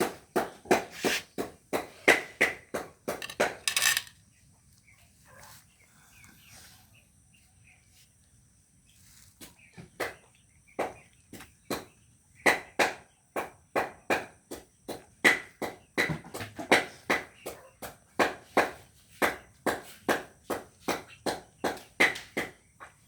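A run of sharp knocks or cracks, about three to four a second, that stops after about four seconds and starts again about five seconds later.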